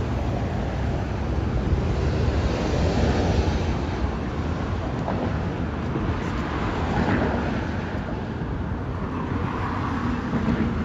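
Wind buffeting the microphone over passing road traffic, a steady rumbling hiss that swells and fades a little, with one vehicle passing by about seven seconds in.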